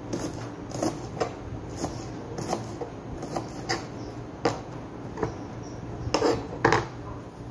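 Kitchen knife chopping red onion on a cutting board: irregular knocks of the blade on the board, one or two a second, the loudest few near the end.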